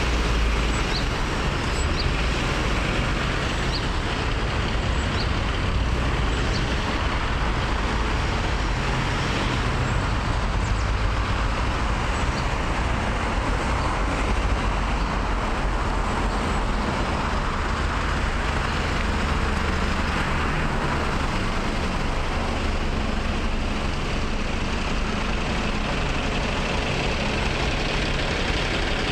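Steady city road traffic: cars and a city bus passing on the road beside the sidewalk. A low diesel engine rumble is strongest in roughly the first half.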